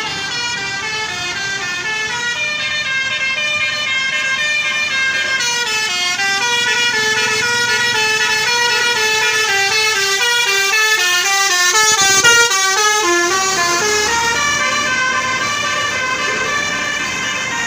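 Indonesian bus telolet horn playing a fast tune: several horn notes sounding together and stepping quickly from pitch to pitch, loudest about twelve seconds in.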